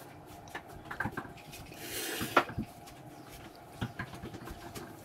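Small scattered clicks and rustles of hands working twine across floured sourdough dough on a metal pizza peel, with a brief rustle about two seconds in and a sharper click just after it.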